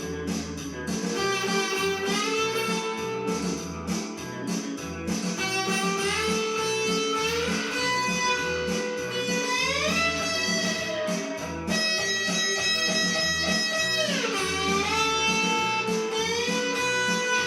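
Blues guitar music: a lead guitar playing lines full of string bends that slide up and fall back, over a steady pulsing bass rhythm.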